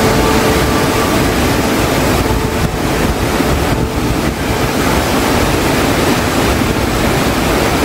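Jogini waterfall: a steady rush of falling water cascading down a rock face, heard close up.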